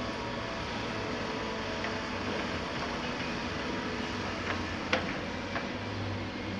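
Hydraulic excavators' diesel engines and hydraulics running steadily, with a low hum that grows stronger near the end as the breaker-fitted CAT 330F lowers its hammer. A few sharp knocks come around five seconds in, one louder than the rest.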